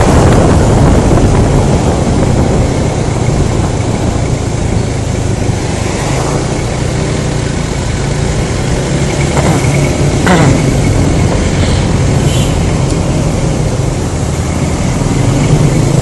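Riding a Honda Scoopy scooter, heard from a phone on the helmet: wind rushing over the microphone over the steady run of the single-cylinder engine, with traffic around it.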